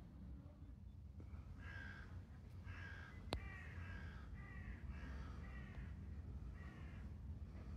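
A crow cawing, a series of six or seven calls at about one a second, with one sharp click about three seconds in.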